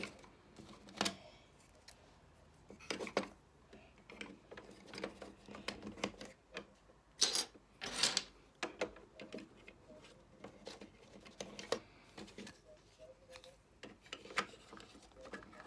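Small plastic Playmobil pieces clicking and tapping as they are set into a plastic doll house: irregular light clicks, the loudest about halfway through.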